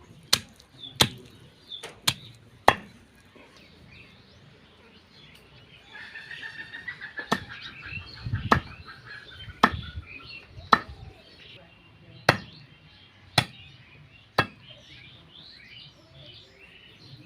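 Chopping: about a dozen sharp strikes, a few close together at the start, then roughly one a second in the second half. Small birds chirp steadily behind them.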